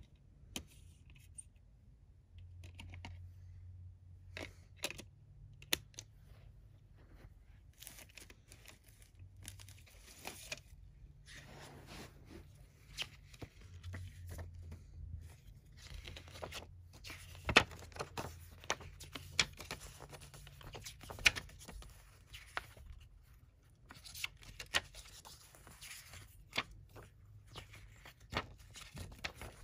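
A CD jewel case and its packaging being handled: crackling and tearing of plastic wrap and paper, with scattered sharp clicks from the plastic case. Two louder clicks come a little past the middle. Near the end, booklet pages are turned.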